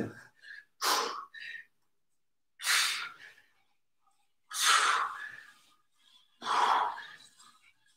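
A man's sharp breaths out under exertion, about four of them, roughly one every two seconds, one with each repetition of a side-plank arm rotation.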